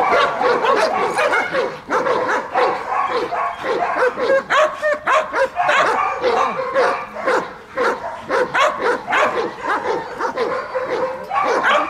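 German shepherd barking rapidly and almost without pause, short excited barks with yips mixed in.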